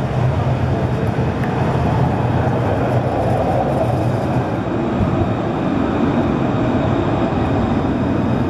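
Alstom Citadis 403 tram passing close by, rolling along the street track with a steady rumble and low hum.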